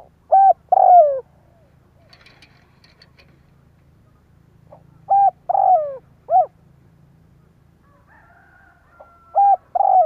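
Spotted dove singing: three phrases of two or three coos, about four seconds apart, each with a longer coo that falls in pitch.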